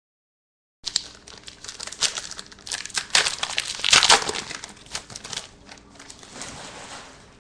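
A trading-card pack wrapper crinkling and tearing as it is opened, starting about a second in and loudest midway.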